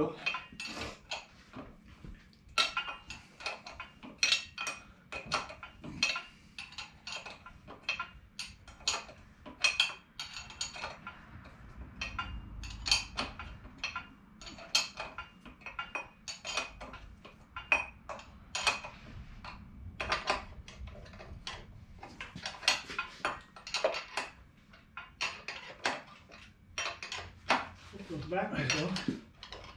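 A wrench clinking and tapping on the turbocharger's bolts and mounting flange while the turbo is bolted onto a Detroit Diesel 6-71 engine. It is a quick, irregular series of sharp metallic clicks and taps.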